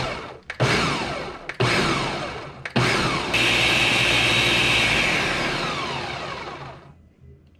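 Countertop blender pulsed in short bursts about a second apart, its motor slowing after each one. It then runs steadily for a few seconds before winding down near the end. It is chopping a warm, chunky mix of charred peppers and onion in liquid into a smooth sauce.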